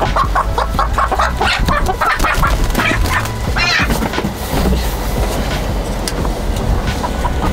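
Chickens clucking in quick short notes through the first few seconds while a hen is handled, thinning out after that. A steady low rumble runs underneath.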